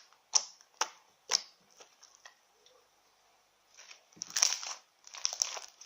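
Homemade clear slime being squeezed and stretched by hand, making sharp clicking pops: three loud clicks in the first second and a half, then a few fainter ones. From about four seconds in comes a dense stretch of crackling and squishing.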